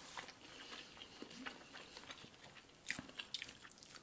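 Faint eating sounds: chewing and small mouth clicks, with a sharper click about three seconds in.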